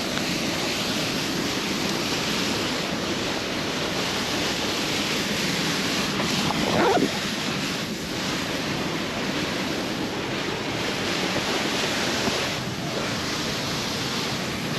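Steady rushing of a large waterfall. About halfway through, a short, louder sound briefly stands out above the roar.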